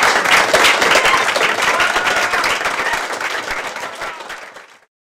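Audience applauding, with a few voices in the crowd. The clapping fades from about three seconds in and cuts off abruptly just before the end.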